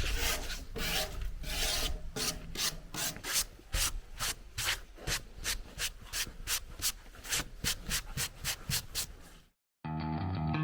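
Old paint being worked off a wooden door by hand: quick, even back-and-forth rubbing strokes, about three or four a second. It cuts off abruptly about nine and a half seconds in, and guitar music starts just before the end.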